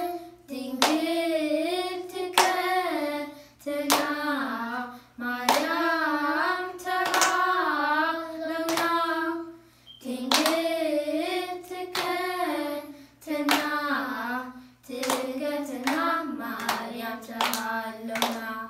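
A group of children singing a Tigrinya Orthodox Tewahedo hymn (mezmur) in unison, without instruments, clapping their hands on a steady beat.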